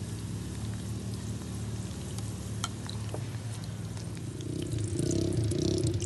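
Potato chips frying in hot oil in a metal pan, sizzling steadily with scattered small pops over a steady low hum. About four and a half seconds in the sizzle grows louder and hissier as fresh pieces go into the oil.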